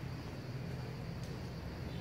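Steady low rumble of outdoor background noise with a faint hiss above it and no distinct events.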